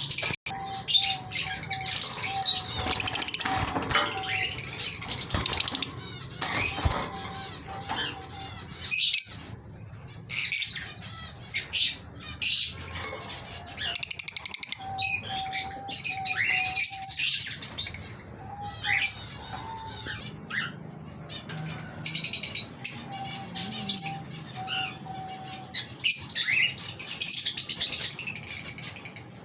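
Pet birds chirping and calling in irregular bursts, with wing flapping.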